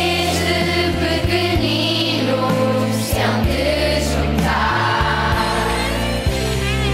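A group of voices singing a song in Portuguese, the school group's anthem, over instrumental backing with long, held bass notes.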